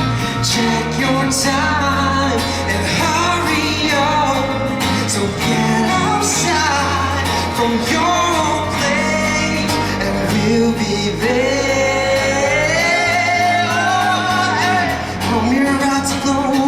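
A song performed live: a band playing, with a singer's voice moving in long, gliding held notes over it.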